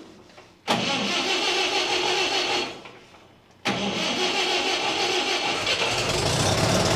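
Mahindra 575 DI tractor engine, running on compressed biogas, being started in two goes: a first start of about two seconds that fades away, then a second start about three and a half seconds in that catches and keeps running, with a deeper rumble building near the end.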